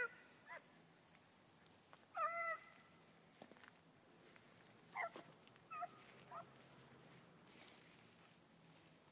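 Beagles giving tongue on a rabbit trail: about six faint, scattered barks and bawls, the longest a drawn-out bawl about two seconds in.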